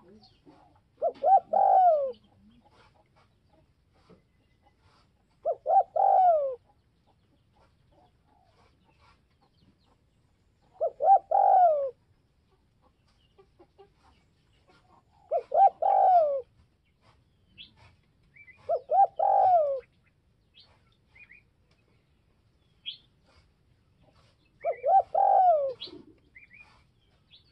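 Caged spotted dove giving its cooing call, the phrase used to lure wild doves: six phrases a few seconds apart, each a quick run of coo notes ending in a falling coo. Faint high chirps sound between the later phrases.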